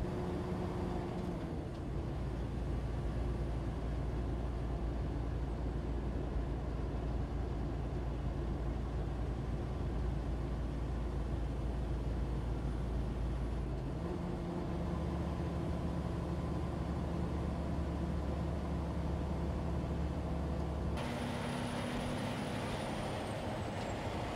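Freightliner Cascadia semi-truck cruising on the highway: a steady diesel engine drone with road noise, heard from inside the cab, its tone shifting abruptly about two-thirds of the way in. Near the end it gives way to a brighter rush of tyre and wind noise.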